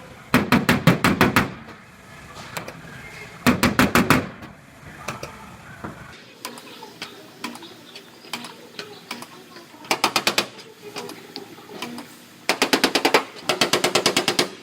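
Rapid metal tapping on the steel bed side of a Dodge Ram pickup as a dent is worked out with dent repair tools. The strikes come in five bursts of about a second each, several strikes a second, with quieter pauses between bursts.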